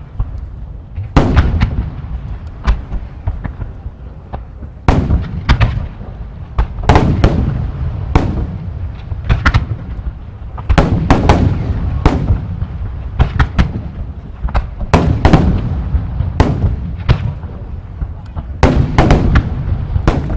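Aerial firework shells bursting in quick succession: sharp booms, each trailing a low rumble, coming in dense volleys that swell and ease off.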